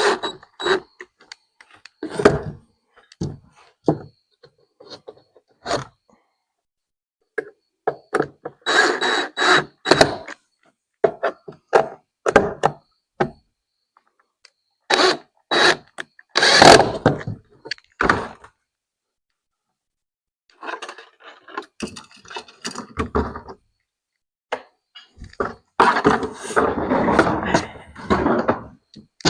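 Hard parts being handled and fitted together by hand: scattered clicks, knocks and thunks coming in clusters, with brief pauses between them.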